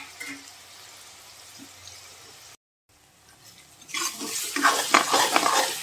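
Tomato-onion tadka in ghee sizzling faintly in a metal kadhai. About four seconds in, a metal ladle begins stirring it, scraping repeatedly against the pan over a louder sizzle: the tomatoes have softened and the masala is being fried.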